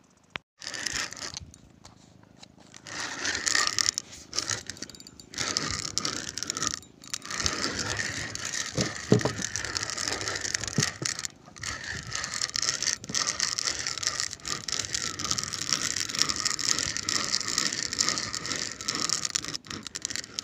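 Fishing reel clicking and whirring in stretches with short breaks as a hooked fish is fought and line is reeled in or pulled off.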